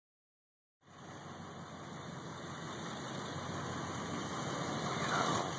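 Steady motor vehicle engine and road noise that starts about a second in and slowly grows louder.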